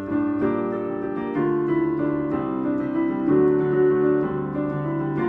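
Piano playing slow sustained chords that change about once a second.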